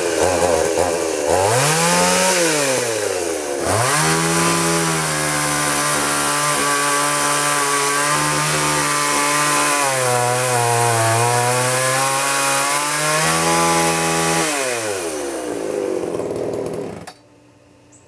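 1987 Craftsman 3.7 chainsaw (Poulan-built 60cc two-stroke) revved up and back down once, then held at high revs while cutting wood, its pitch sagging as it loads down in the cut. It then drops back to idle, and the sound cuts off sharply near the end.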